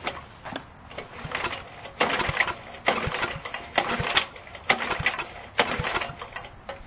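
Recoil pull-starter of a 7 or 8 hp Tecumseh horizontal-shaft engine pulled over and over, the engine cranking in short rattling bursts without catching, just after its carburetor rebuild.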